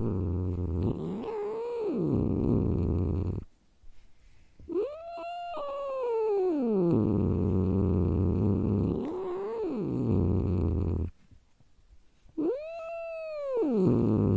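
A cat growling: a long low rumbling growl, twice cut off briefly, broken by four drawn-out yowls that rise and then fall in pitch, two of them short and two longer.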